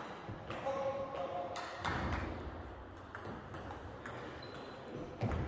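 Table tennis rally: the ball clicks in quick, uneven succession off the paddles and the table, echoing in a large sports hall.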